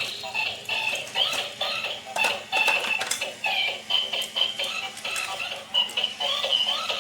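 Music with a high, thin electronic melody and scattered clicks, with almost no bass.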